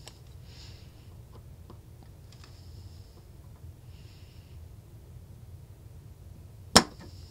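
Spring-loaded aluminium-tube solder sucker firing once, a sharp snap about two-thirds of the way through as its plunger shoots back to suck molten solder off a joint. Before it, only faint soft hisses and small ticks over a low steady hum.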